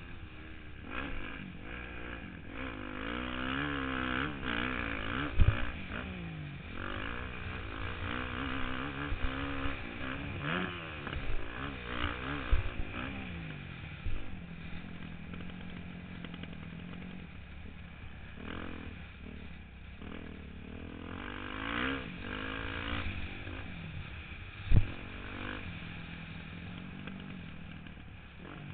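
Motocross dirt bike engine being ridden hard, its pitch rising and falling over and over as the throttle opens and closes, heard from a helmet-mounted camera. Three sharp thumps stand out, about five, twelve and twenty-five seconds in.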